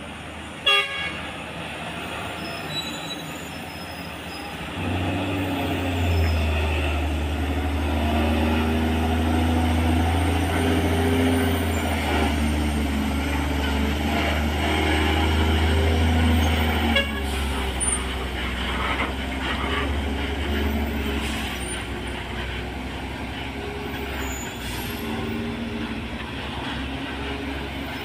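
Heavy FAW JH6 truck's diesel engine working through a steep hairpin bend. Its deep rumble swells about five seconds in, holds, and falls back about seventeen seconds in. A short sharp knock comes near the start.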